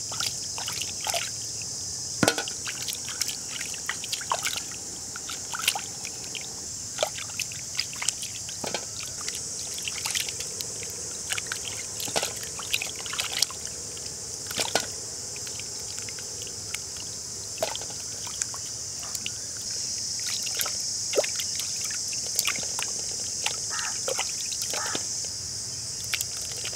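Wild mangoes being washed by hand in a pot of water: sloshing and trickling with many small splashes and knocks as the fruits are rubbed and moved about. A steady high-pitched insect drone continues underneath.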